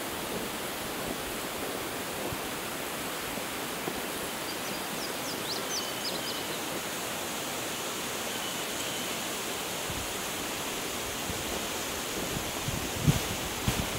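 Steady outdoor background rush with no engine running, a few faint high chirps about halfway through. Low gusty thumps of wind on the microphone start near the end.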